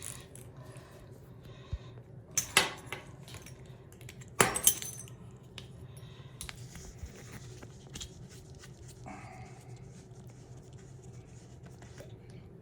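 Small metal bidet hose fittings and sprayer parts clinking and rattling as they are handled and unscrewed, with two louder metallic knocks about two and a half and four and a half seconds in, and light clicks between.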